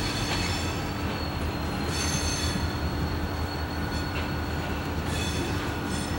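Freight train's covered hopper cars rolling through a curve: a steady low rumble of wheels on rail, with high-pitched wheel squeal swelling twice, about two seconds in and again about five seconds in.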